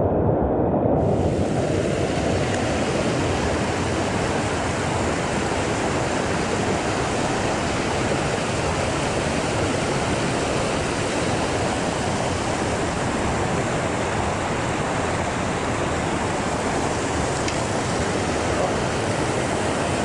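Rocky mountain stream rushing over small cascades between boulders: a steady, close rush of whitewater.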